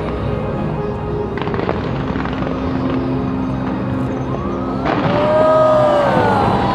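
Aerial fireworks crackling and banging with music playing alongside. About five seconds in comes a louder burst with several falling, gliding tones.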